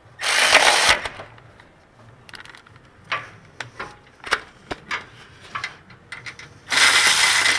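Milwaukee cordless electric ratchet running in two short bursts, one right at the start and one near the end, as it spins out the 18 mm caliper bolts on a Ford Expedition's rear brake. Between the bursts, the socket and tool click and knock against the metal.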